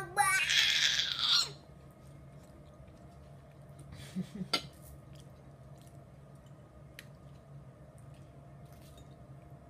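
A loud, breathy hiss for about the first second and a half, then a quiet room with a few faint clicks of a metal fork against a china plate.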